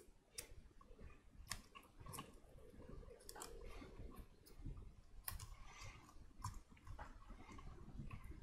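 Faint, scattered clicks and handling noise of hands wrapping tape around a wire bundle at a 3D printer's hotend.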